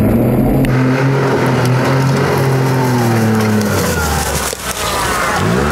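John Deere Gator 825i utility vehicle's engine running under load, its pitch sagging slowly, dropping off about four seconds in, then revving up again near the end. A rough rushing noise of the tyres working through the creek runs under it.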